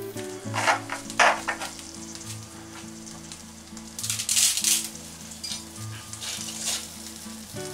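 Dry linguine being lowered into a saucepan of boiling water and pushed down against the pot, heard as several short hissing bursts, the longest about four seconds in. Background music plays underneath.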